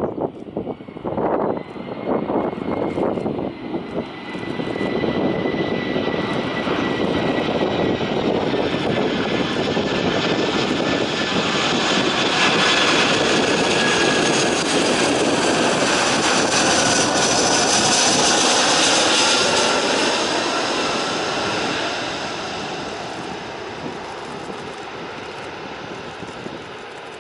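Airbus A340-300 airliner landing, its four CFM56 jet engines building to a loud roar with a slowly falling whine as it passes, then fading away. Wind gusts on the microphone in the first few seconds.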